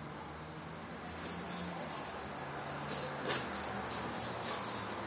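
Plastic mustard squeeze bottle sputtering: a series of short hissing spurts of air and mustard, about seven or eight over a few seconds, over a low steady hum.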